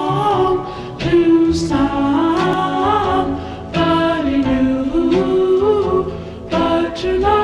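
Background music: voices singing in harmony, choir-like, in phrases about a second or two long.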